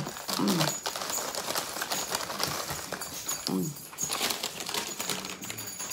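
Close-up eating noises of two people eating chicken noodle soup: slurping and chewing with many small wet clicks, and a couple of short hums.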